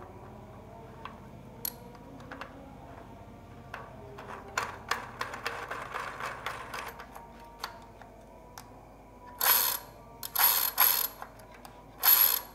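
BMX single-speed freewheel clicking as it is threaded and turned on the wheel hub by hand, with a quick run of ratchet clicks near the middle and three louder bursts of ratcheting near the end.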